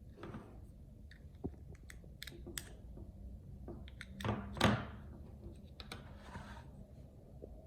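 Handling noise from small hardware: a scatter of light clicks and taps, with one louder scrape and knock about four and a half seconds in.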